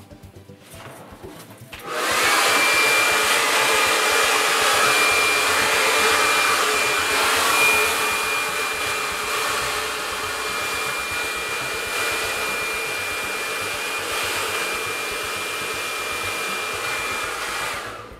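Handheld hair dryer switched on about two seconds in, blowing steadily with a thin high whine over the rush of air, aimed at hair twisted around a round brush, then switched off just before the end.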